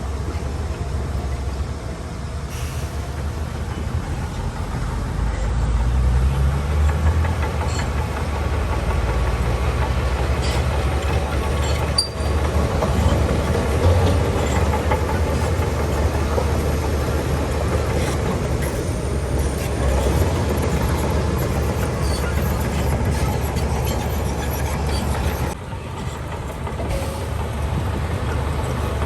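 Heavy diesel earthmoving machinery at work: a low, steady engine rumble with scattered metallic clanks, growing louder about five seconds in.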